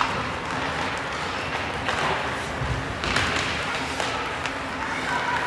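Ice hockey game in a rink: scattered thuds and knocks of puck, sticks and players against the boards over a steady arena din.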